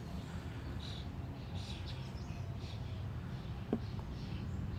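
Short high bird chirps repeating over a steady low background rumble, with a single sharp click about three and a half seconds in.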